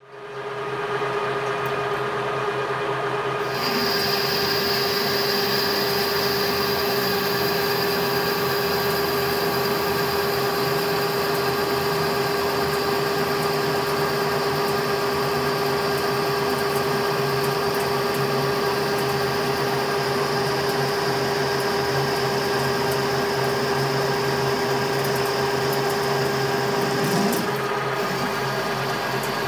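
Paulimot PM4000 metal lathe running steadily with a constant whine. A higher-pitched tone joins about three seconds in and stops shortly before the end.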